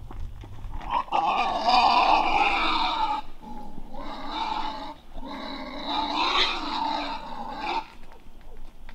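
Wild boar squealing and growling loudly in three long, rough bouts, the second one short.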